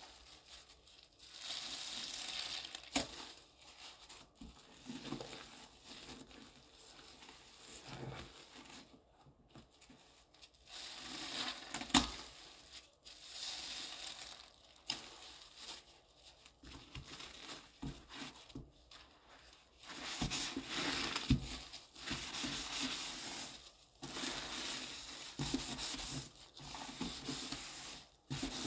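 A sponge squeezed and worked by a plastic-gloved hand through thick foamy cleaning paste, then swiped around the sink bowl. The sound comes in irregular bursts with quieter stretches and a couple of sharp clicks.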